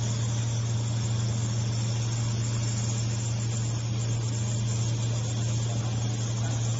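Handheld laser welding machine running while it welds: a steady low hum with an even hiss over it.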